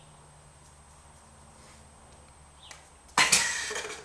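A cat's tail, sheathed in a green rubber sleeve, slaps the wooden floor twice in quick succession near the end. The slaps are loud and sudden after near-quiet, and are followed by a short rustle.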